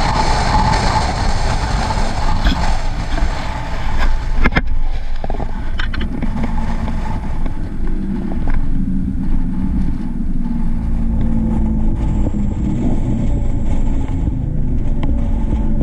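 Vehicle driving: engine and road rumble with a rush of wind noise. The hiss drops away after a sharp knock about four and a half seconds in, leaving a lower, steadier engine and road sound.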